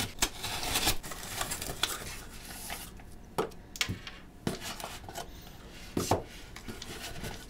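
Cardboard shipping box wrapped in tape and plastic wrap being cut and torn open, with scraping and crinkling for the first few seconds. Then a few sharp knocks as the cardboard flaps are folded back and the small boxed cubes inside are handled.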